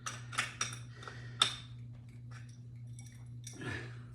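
Sharp metallic clicks and clinks of a small wrench working on a bicycle wheel's axle nut, several quick ones in the first second and a half, then sparser, with a softer scrape near the end.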